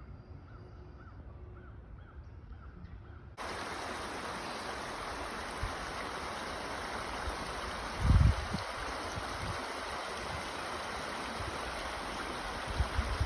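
Steady rush of creek water that starts abruptly a few seconds in, after a quieter opening, with a brief low thump on the microphone near the middle.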